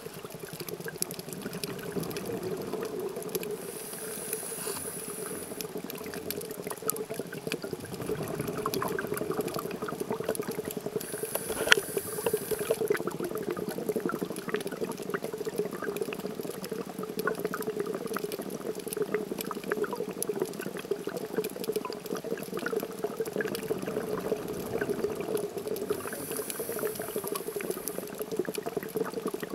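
Underwater ambience through a diver's camera housing: a steady bubbling, crackling wash. Three times there is a short burst of hissing bubbles from the diver's exhaled breath, and there is one sharp click near the middle.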